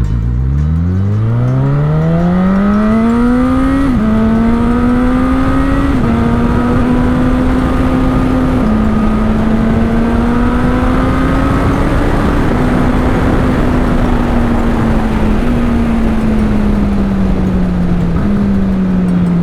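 Honda CB1000R inline-four motorcycle engine accelerating hard from low revs, its note climbing, then dropping sharply at quick-shifter upshifts about 4, 6 and 9 seconds in without the throttle being closed. In the second half the revs jump up twice at downshifts and then ease off, with steady wind rush throughout.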